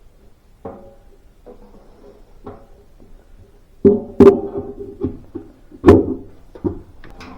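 A series of irregular knocks and clunks from hard objects striking each other. They are faint at first, and the loudest come about four and six seconds in.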